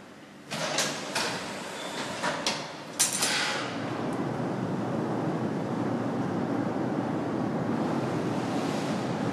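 Grand Junction 90-inch Cornish beam engine being started by hand: a string of sharp metallic clanks from its valve gear levers over the first few seconds, then a steady rush of steam from about three seconds in, as the stroke is worked up long enough to close the exhaust valve.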